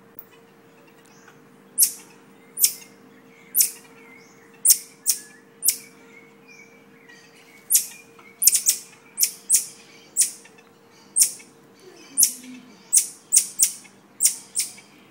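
Marmoset calling with short, sharp, high-pitched chirps, repeated irregularly and coming thicker in the second half.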